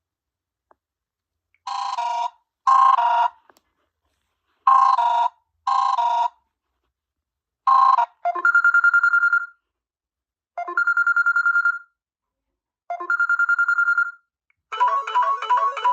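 Mobile phone ringtones playing one after another. First a ring in short, buzzy pulses; then a high trilling ring in three bursts of about a second each; near the end another, more melodic ringtone begins.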